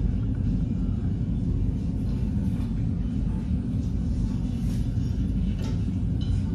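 A steady low rumble with a few faint light taps over it.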